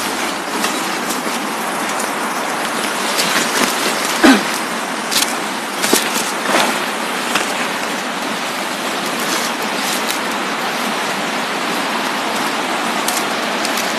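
Footsteps and leaves brushing while walking along a path through dense coffee shrubs, over a steady rushing noise, with scattered rustles and one sharper knock about four seconds in.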